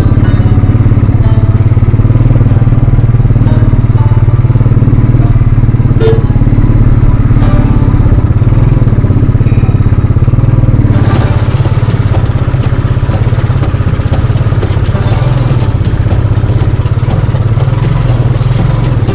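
Motorcycle engine running steadily, a deep, even thrum. About eleven seconds in a crackling hiss joins it.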